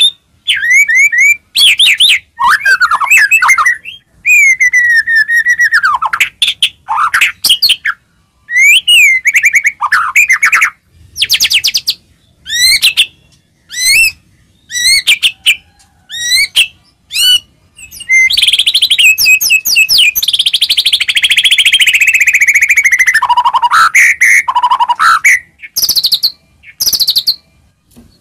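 White-rumped shama (murai batu) singing loudly, a quick series of varied whistled phrases and trills. Past the middle comes one longer dense run of notes that slides down in pitch.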